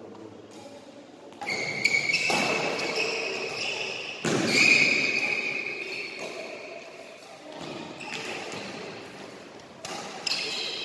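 Badminton rally in a sports hall: a few sharp racket strikes on the shuttlecock, each followed by a high ringing squeak that fades over a second or two, echoing in the hall.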